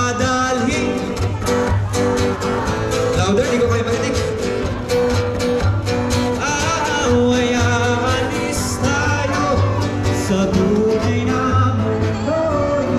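Street buskers performing a song: a singer with instrumental backing.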